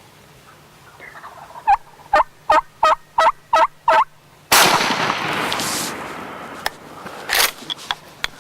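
An Osceola wild turkey gobbler gobbles, a rapid run of about seven rattling notes. About half a second later comes a single loud shotgun blast that echoes and dies away over a second or so, followed by a few faint clicks and rustles.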